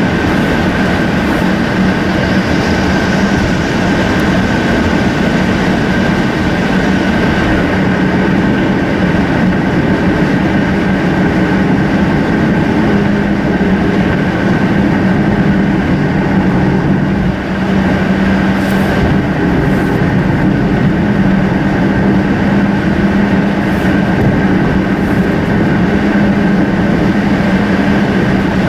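Steady road and tyre noise with a constant hum, heard from inside a car cruising on a highway.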